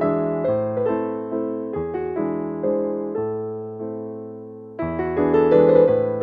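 Background piano music: a gentle melody of struck notes over low sustained bass notes, growing louder about five seconds in.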